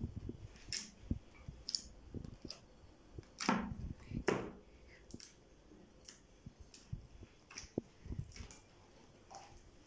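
Soft, foam-like slime being squeezed and stretched by hand, giving irregular small sticky clicks and pops, the two loudest about three and a half and four seconds in.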